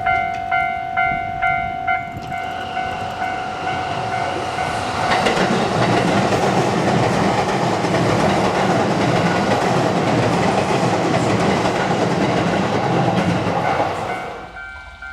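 Japanese level-crossing alarm bell clanging about twice a second, then a train passing through the crossing with wheels on rail, louder for about nine seconds before the sound stops suddenly about fourteen seconds in. A different steady ringing tone begins near the end.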